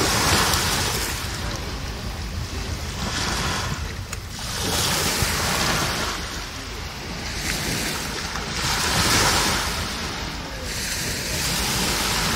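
Small waves breaking on a sandy beach and washing up the shore, the surf swelling and fading every few seconds, four or five times.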